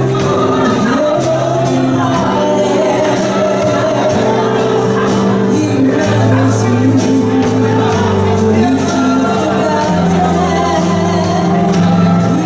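Live worship music: sustained keyboard chords changing every couple of seconds, with a steady cymbal beat and a voice singing over them.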